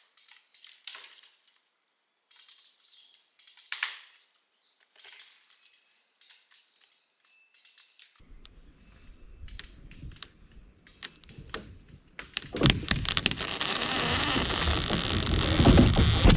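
Dry twigs and brush crackling and snapping in scattered light clicks. About twelve seconds in, a much louder, dense crashing and crackling sets in and keeps going.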